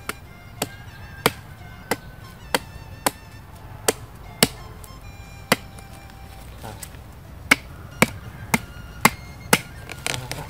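Machete chopping into the husk of a young green Siamese coconut: about fifteen sharp hacks, roughly two a second, with a pause of about two seconds past the middle.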